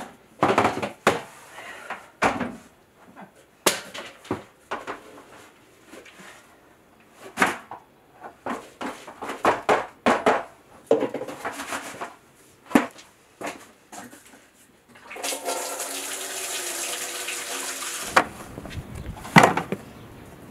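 Irregular knocks and clatter of plastic bins, lids and buckets being handled, then a steady rushing pour for about three seconds near the end.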